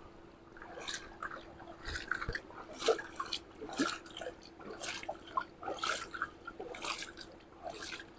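Faint water dripping and splashing as a plastic toy truck is washed: irregular small splashes about one or two a second, over a faint steady hum.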